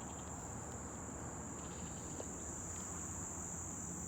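Insects singing in a steady, unbroken high-pitched trill.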